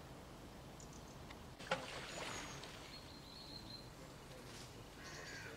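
Quiet lakeside morning ambience with faint birdsong. A sharp click comes a little under two seconds in, a thin high bird whistle follows shortly after, and a crow caws near the end.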